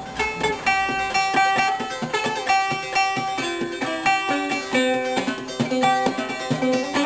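Five-string banjo played clawhammer style: a quick run of plucked notes with one high note sounding again and again.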